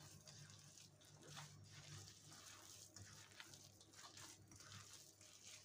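Faint squishing and crumbling of crumbly oat cookie dough being kneaded by hand in a glass bowl, in short irregular strokes over a low steady hum.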